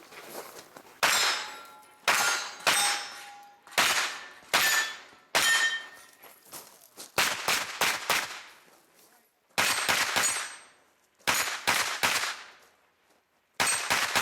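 Pistol-caliber carbine firing rapid strings of shots, mostly in pairs and threes, with some hits ringing on steel targets.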